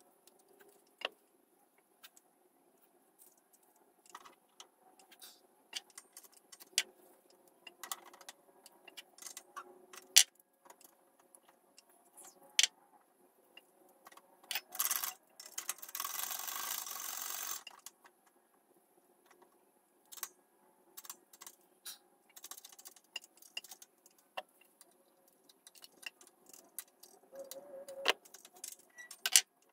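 Scattered clinks, clicks and knocks of metal and plastic parts being handled and fitted together on a workbench, with a stretch of noise lasting about two seconds just past the middle.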